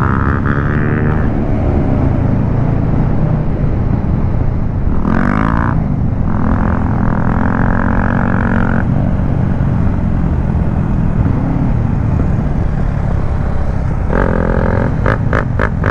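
Motorcycle engines running on the move, their pitch rising and falling briefly about five seconds in. Near the end a fast repeating higher-pitched tone comes in over the engine noise.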